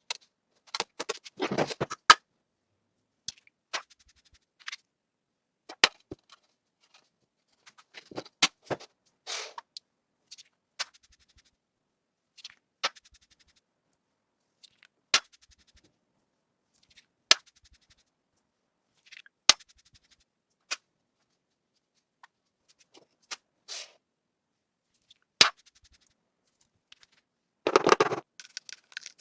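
Kinetic sand being cut with a blade: single sharp clicks as the blade strikes through the sand, with short scraping crunches, separated by silent gaps.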